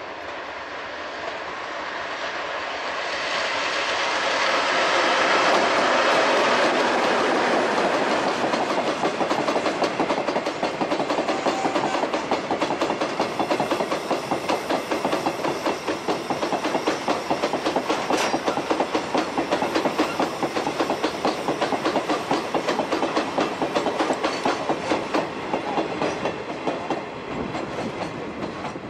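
A Chichibu Railway Deki electric locomotive passes, hauling a long train of Woki 100 ore hopper wagons. The locomotive's approach builds to the loudest point a few seconds in. Then the wagons' wheels clatter over the rail joints in a quick, even clickety-clack, which fades near the end as the last wagon goes by.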